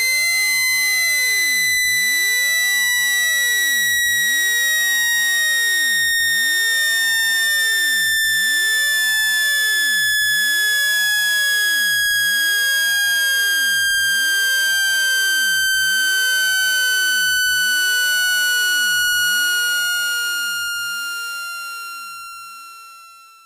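Synthesized speaker-cleaning tone, played to shake water out of a phone speaker. One loud, piercing electronic tone with overtones slides slowly down in pitch and fades out over the last few seconds.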